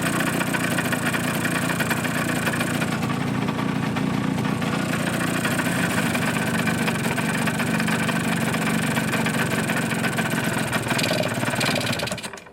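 Suzuki GP100's single-cylinder two-stroke engine idling hot on a test stand, rattling with loud piston skirt slap, a sign that the piston-to-cylinder clearance is worn and needs a rebore and new piston. The engine stops abruptly near the end.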